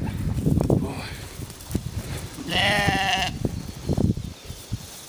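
A sheep bleats once, a wavering call lasting under a second about halfway through. Low thuds and rustling come before and after it.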